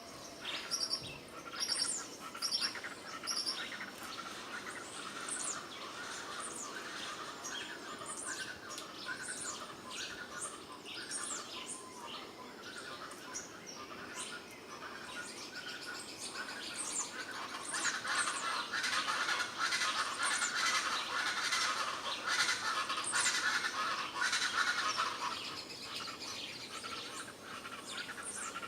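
Many birds chirping and calling over one another, with short sharp notes throughout. About two-thirds of the way through the calls thicken into a dense chorus, then thin out again.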